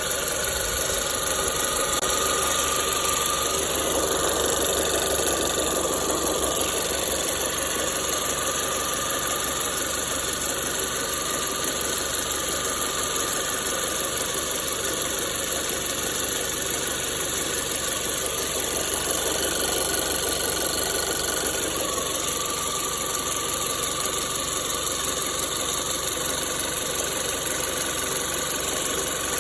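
Nissan Serena C26's MR20DD four-cylinder engine running steadily with a metallic rattle, which a garage judged to come from a slack timing chain.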